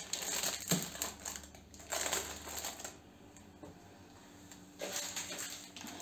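Crinkling and rustling of plastic and paper food packets as they are handled and pushed onto a cabinet shelf, in several bursts, with a quieter pause in the middle and another rustle near the end.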